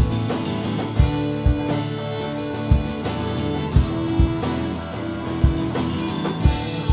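A live band plays an instrumental passage with no vocals: strummed acoustic guitar, electric guitar and bowed fiddle over a drum kit, with the kick drum hits standing out at a steady pulse.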